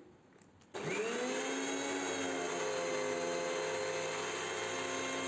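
Preethi Crown mixer grinder starting about a second in, its motor whine rising quickly and then running steadily as it grinds garlic cloves into egg white and lemon juice in its stainless steel jar.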